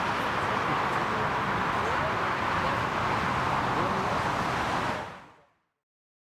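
Jet engine noise from a landing Airbus A320neo, a steady rushing noise that fades out quickly about five seconds in.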